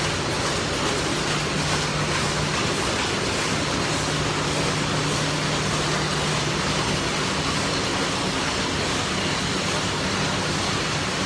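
Steady mechanical din of screw-factory machinery running, an even rushing noise with a constant low hum underneath.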